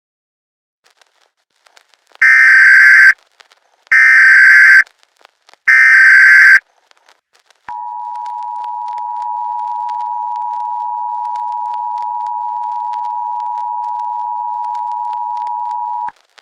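Emergency Alert System SAME header: three identical bursts of warbling digital data tone, each just under a second long. About two seconds later comes the steady two-tone EAS attention signal, held for about eight seconds and then cut off.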